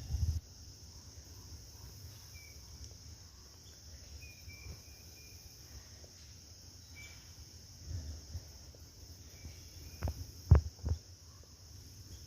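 Steady high-pitched insect chorus, a continuous shrill drone, with a few short faint chirps. Several low thumps about ten seconds in.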